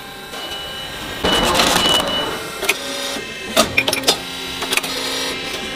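Machine sounds as tungsten carbide buttons are pressed into the holes of a drill-bit head: a hiss about a second in, then a run of irregular sharp metallic clicks and knocks over a low steady hum.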